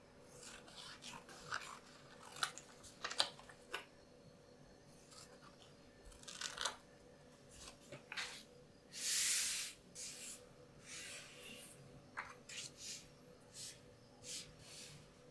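Scissors snipping through a paper pattern in short crisp cuts, with paper rustling and handling. A longer sliding, hissing paper sound comes about nine seconds in, and near the end paper pieces are laid down on a cutting mat.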